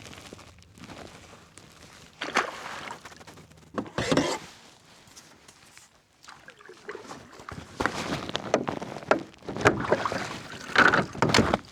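Irregular rustling, scraping and knocking in a fishing kayak, in uneven bursts, loudest over the last few seconds.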